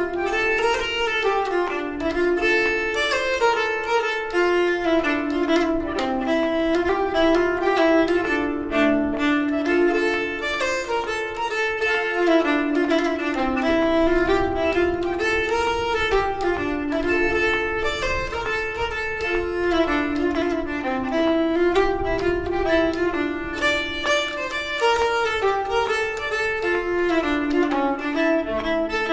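Music: a bowed-string tune in the style of Swedish folk music, a bit jazzy, played on a nyckelharpa, with a flowing melody over a lower moving line of notes.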